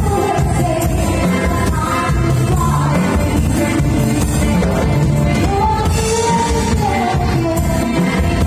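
Live band playing amplified disco dance music: a woman singing the melody over electric guitars, drums and keyboard.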